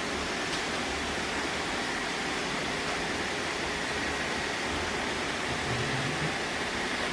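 Robot vacuums running together: a steady whir of suction fans and brushes, with a faint high hum.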